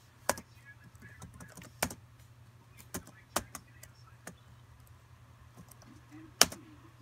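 Dell Inspiron laptop keys pressed one at a time while stepping through the BIOS setup menus: about seven sharp, separate clicks, the loudest near the end, over a steady low hum.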